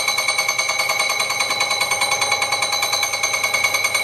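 Small bench lathe running: a steady high-pitched whine from its motor and gear train, pulsing evenly several times a second.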